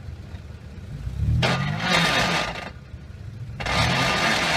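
An off-road 4x4 SUV's engine running at low revs, then revved hard twice, each rev about a second long with the pitch rising and falling, as the wheels spin in loose dirt with a loud rushing hiss.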